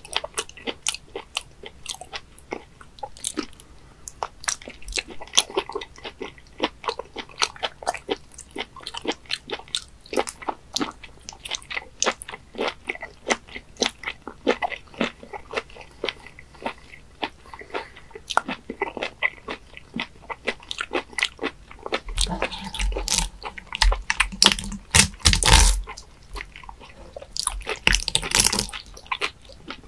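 Close-miked chewing of raw webfoot octopus (jjukkumi): a steady run of wet mouth clicks and bites, about two or three a second. A louder, fuller stretch of noise comes about two-thirds of the way through and again near the end.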